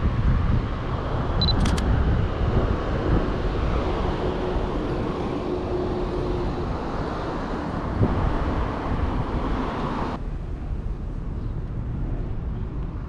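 Canon EOS M50 taking a shot: a short focus-confirmation beep followed at once by quick shutter clicks about a second and a half in, over a steady low rumble of wind and street traffic. The higher hiss of the background cuts off suddenly about ten seconds in.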